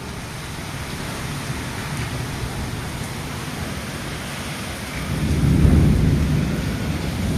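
Heavy rain falling steadily in a downpour, with a low rumble that swells about five seconds in.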